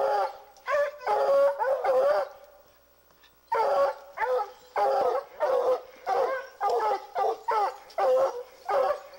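Treeing Walker coonhounds baying at a treed mountain lion. Their bawling barks come in a cluster at first and then, after a short pause, in a steady rhythm of about two a second.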